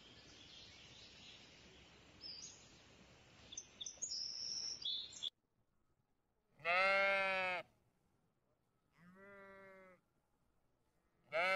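Outdoor background noise with a few high chirps, cutting off abruptly about five seconds in. Then domestic sheep bleat: one loud bleat, a softer one about two seconds later, and another loud bleat starting near the end.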